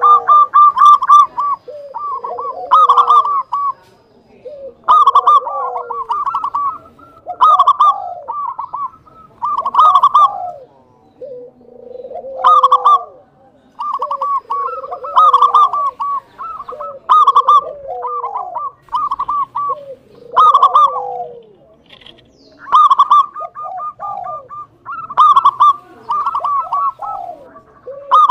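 Zebra dove (perkutut) singing its staccato cooing song. It repeats a phrase about every two seconds, each a quick run of clipped high notes followed by a lower coo that falls in pitch.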